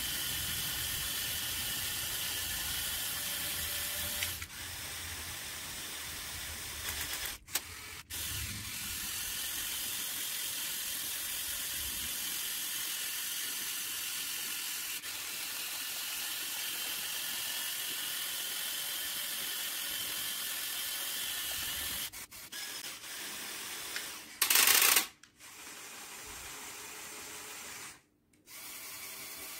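Small electric motors and gears of a motorised Lego Technic hooklift truck model running, a steady whir with a faint high whine that drifts slowly in pitch. The whir breaks off abruptly several times, with a brief louder rasp about 25 seconds in.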